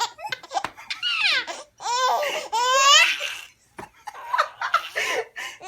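A four-month-old baby girl laughing hard in high-pitched peals, with a short break about three and a half seconds in before softer laughs.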